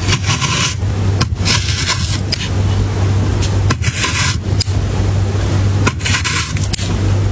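Frozen fruit crunching crisply in four short bursts, over a steady low hum.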